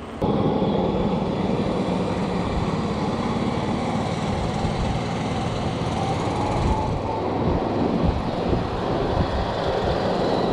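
Wind buffeting the microphone of a camera carried on a moving bicycle: a steady rushing rumble that starts suddenly just after the start.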